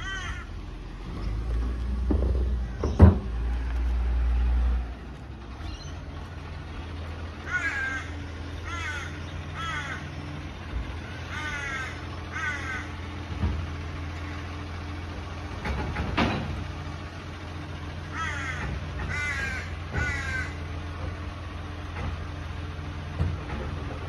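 Crows cawing in several bouts of a few harsh, falling caws each, over a steady low rumble. A louder low rumble fills the first few seconds, with a single sharp knock about three seconds in.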